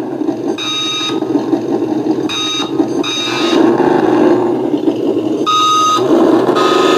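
Sound module in a 1/12 Kyosho DF300 RC car playing a simulated engine running through its speaker. Electronic beeps come and go in short groups about five times over it.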